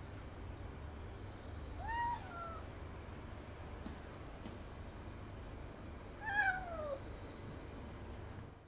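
Domestic cat meowing twice, about two seconds in and again about six seconds in; the second call is longer and slides down in pitch.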